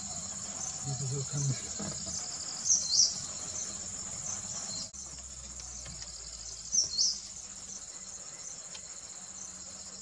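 Steady high-pitched trilling chorus of insects in dusk vegetation. A short, sharp high call rings out over it twice, about four seconds apart, and is the loudest sound.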